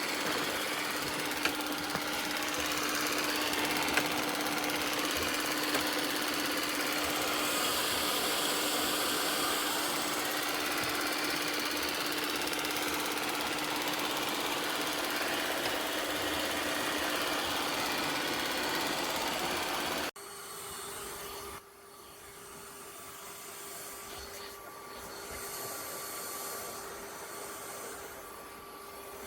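eufy X10 Pro Omni robot vacuum running with a steady hum. About twenty seconds in, the sound cuts off suddenly and a quieter, slightly higher-pitched steady hum follows.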